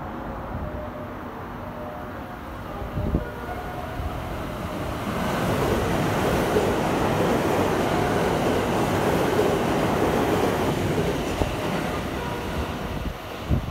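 Six-car JR West 227 series electric train passing through the station at speed without stopping. A rush of wheel and running noise builds about five seconds in, stays loud for about six seconds, and eases off as the last car goes by.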